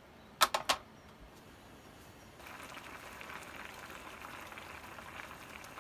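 Three sharp clicks in quick succession, then food starts sizzling in a hot pan about two and a half seconds in and keeps up a steady sizzle.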